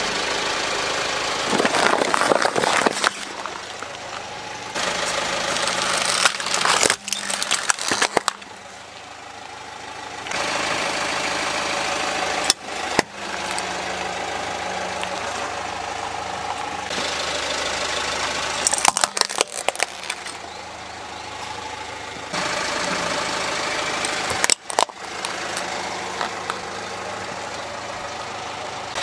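Car engine running as a tyre creeps over and crushes small toys, with several sharp cracks and crunches of breaking plastic.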